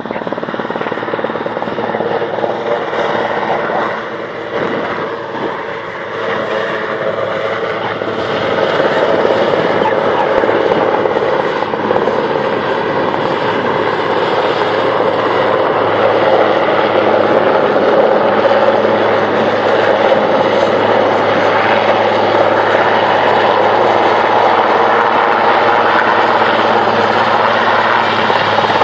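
Large military transport helicopter flying a low pass. Its rotor and turbine noise grows louder over the first several seconds as it approaches, then holds loud, with a thin high turbine whine running through it.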